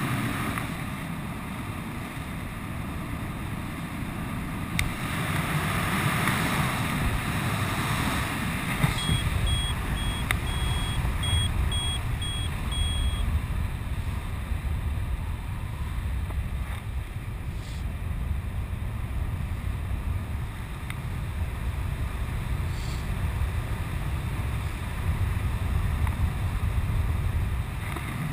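Wind rushing over a helmet camera's microphone while the skydiver flies a small high-performance parachute canopy. It is a steady, rumbling rush that gets heavier and deeper from about nine seconds in.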